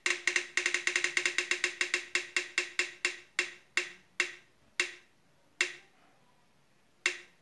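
Spin-the-wheel phone app's ticking sound effect: a fast run of short wooden-sounding clicks that slows steadily as the wheel coasts, ending in a few widely spaced ticks, the last about seven seconds in, as the wheel comes to rest.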